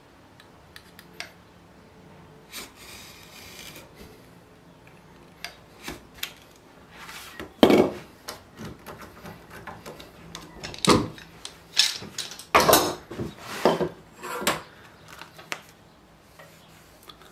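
A paper writing pad and a wooden box being handled, with light rubbing and scattered knocks. A cluster of louder, sharper knocks and scrapes comes between about 7 and 15 seconds in.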